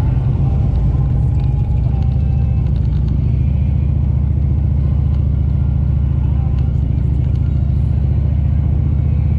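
Motorcycle engine running steadily under way: a constant low rumble that holds the same pitch throughout.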